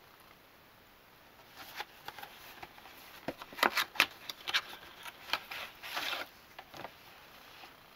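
Cardboard product box being handled and opened by hand: an irregular run of taps, scrapes and rustles, loudest about four seconds in, with a longer scrape about six seconds in.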